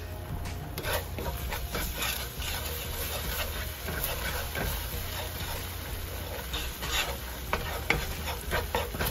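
Wooden spatula stirring and scraping a thin oil-and-soy-sauce dressing around a hot nonstick frying pan in repeated short strokes, with the oil sizzling.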